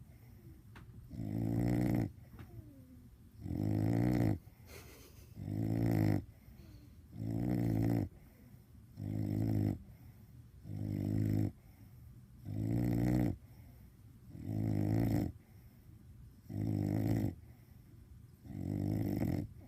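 Bulldog snoring in its sleep: about ten loud, rattling snores, one every two seconds or so, each swelling for about a second on the in-breath, with quiet breathing between.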